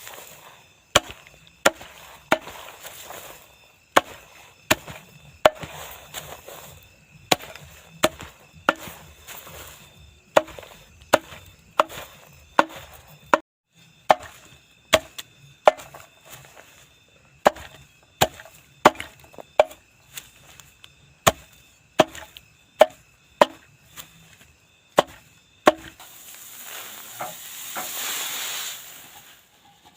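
Repeated chopping strokes of a blade into wood, each a sharp knock, about one to two a second with a brief pause partway through. A rustling noise swells near the end.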